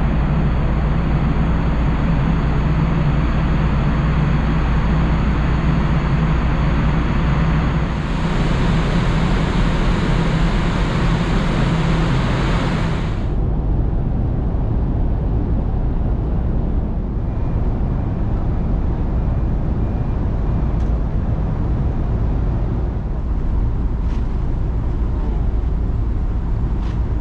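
Machinery noise of the Taiheiyo Ferry Kitakami heard from the open deck: a loud, steady hum with a rushing hiss. About halfway through it cuts off suddenly and gives way to a lower, steady rumble with a softer hiss as the ship pulls away from the quay.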